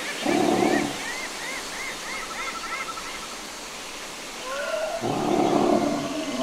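Dinosaur sound effect: two deep, pitched honking calls, a short one just after the start and a longer one near the end. A background of high, repeated chirps and a brief trill runs under them.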